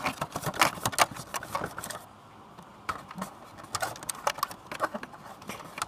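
A hand wiping and rubbing the inside of a New Bright RC car's plastic windshield, giving a quick run of clicks and knocks of plastic in the first two seconds, then scattered taps.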